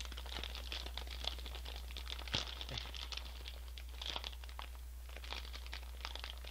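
A Honey Tongtong potato-chip bag being torn open by hand: a run of plastic crinkling and crackling with one louder crackle about two and a half seconds in.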